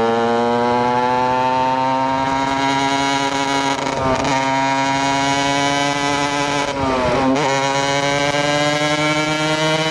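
KTM EXC 125 single-cylinder two-stroke engine under way, its note climbing slowly as the motard gathers speed, with two brief dips in the note about four and seven seconds in.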